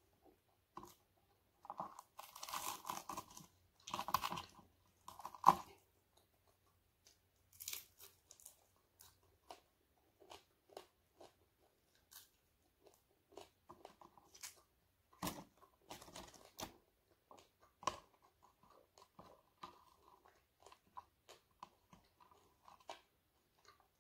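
Close-up chewing and crunching of crispy fried dried fish, with small crackles as pieces are torn off by hand. Dense, louder crunching comes in the first few seconds, then softer, scattered bites and chews.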